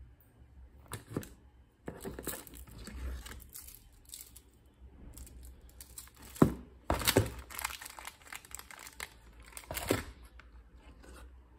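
Hands handling packaged food in a cardboard takeaway box: plastic wrappers crinkling, cardboard and a juice carton rustling, and a few sharp knocks as items are set down. The loudest handling comes a bit past the middle and again near the end.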